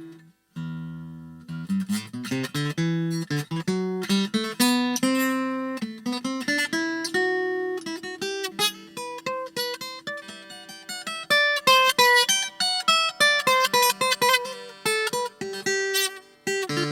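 Washburn WA45CEPAK steel-string acoustic-electric guitar being played: a quick stream of picked single notes and chords, with a short break about half a second in.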